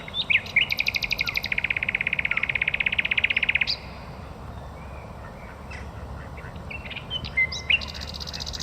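Birds chirping, with a long, rapid, high trill starting about half a second in and lasting some three seconds, and a shorter trill near the end.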